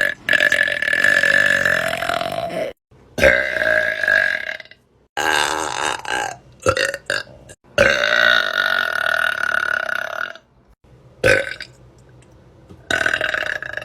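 A woman's long, loud burps, one after another: about half a dozen, most drawn out for one and a half to two and a half seconds, with a short one near the end.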